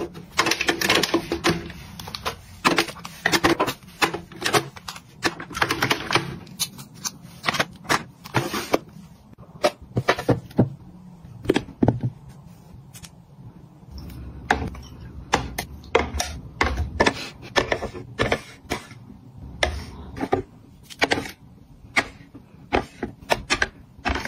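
Cosmetic jars, bottles and glass perfume bottles are set down one after another on clear acrylic organiser shelves. They make an irregular run of sharp clicks and clacks, packed close together in the first few seconds and more spaced out later, with a low hum underneath in the second half.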